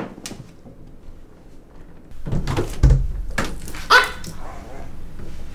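A door opens with a low thump, then several short dog-like barks and whimpers sound from the room, the loudest about four seconds in.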